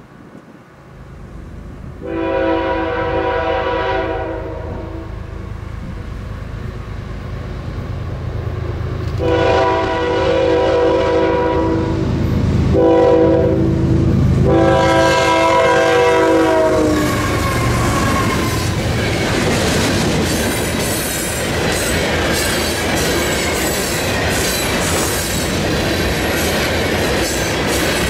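Canadian National freight train, led by GE ES44AC and ET44AC diesel locomotives, blowing its horn in a long, long, short, long pattern, the grade-crossing signal. The last blast drops in pitch as the locomotive passes. Then come the rumble and clickety-clack of freight cars rolling past.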